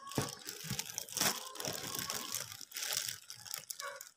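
Clear plastic wrapping crinkling and crackling in irregular bursts as a wrapped mini MIDI keyboard is handled in its cardboard box.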